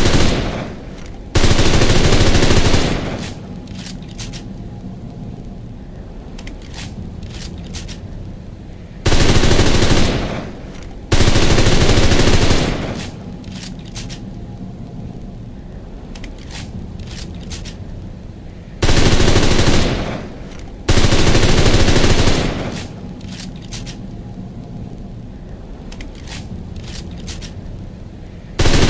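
MP38 submachine gun firing in short full-auto bursts. The bursts come in pairs about two seconds apart, and the pair repeats about every ten seconds. Each burst trails off in a fading tail, with a steady background hiss between the pairs.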